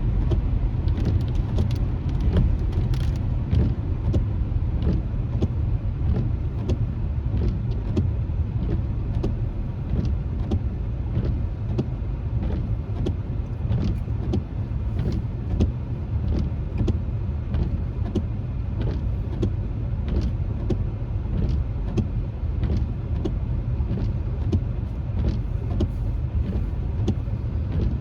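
Steady low road rumble inside a moving car, with raindrops tapping on the windshield in frequent, irregular clicks.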